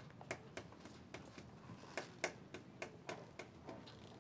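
Fingers tapping on a tabletop, a steady run of light, sharp taps at about three or four a second.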